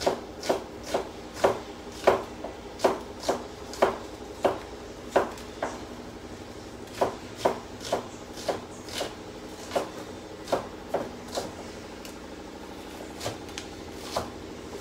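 Knife chopping an onion on a cutting board: sharp knocks of the blade hitting the board, roughly two a second, with a short pause a few seconds before the end. A steady low hum runs underneath.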